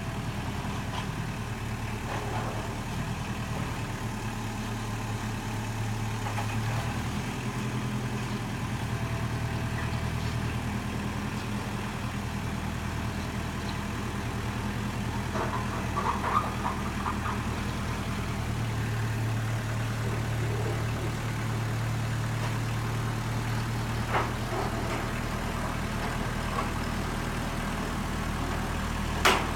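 Kubota M59 backhoe's four-cylinder diesel engine running steadily, its note shifting up and down a few times, with a few sharp clanks, the loudest near the end.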